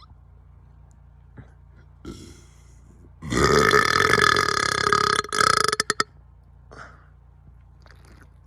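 A man's long, loud burp, about three seconds, starting about three seconds in. It dips briefly near the end and breaks off in a few short pieces.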